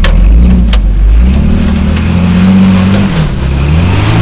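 Off-road Jeep's engine revving under load as it climbs over large tractor tires. The pitch rises about a second in, holds, dips briefly and picks up again near the end. Two sharp knocks come in the first second.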